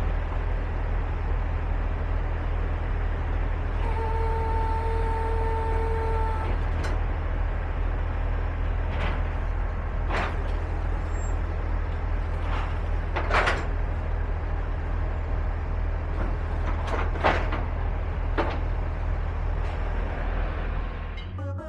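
Car-carrier trailer's hydraulic deck system being worked: a steady low drone of the truck's engine driving the hydraulic pump, with a pitched pump whine about four to six seconds in while the decks are raised. Through the second half come a string of short, sharp noises.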